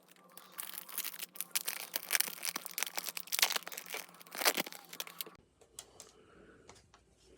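Foil wrapper of a Bowman University Chrome trading-card pack being torn open and crinkled, a dense crackling that lasts about five seconds and then drops to a few faint rustles and taps.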